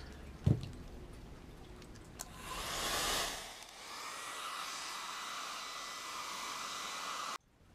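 A hand-held hair dryer blowing steadily with a faint motor whine, heat-setting the fresh airbrushed paint on a wooden lure between coats. It starts with a louder hiss about two seconds in, and it cuts off abruptly near the end. A single knock sounds about half a second in.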